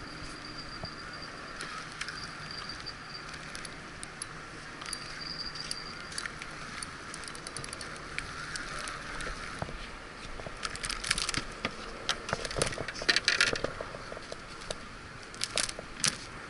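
Steady outdoor hiss, then from about ten seconds in a run of sharp metallic clicks and clinks as small fishing tackle is handled at the pier rail, loudest a few seconds before the end.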